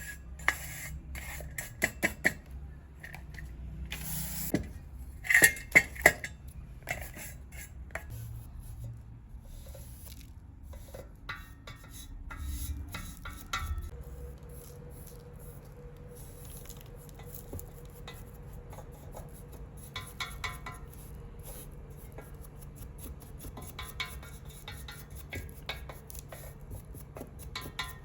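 Brass samovar parts clinking and knocking against each other as they are handled, with a cluster of three loud metallic knocks about five seconds in and scattered lighter clinks after.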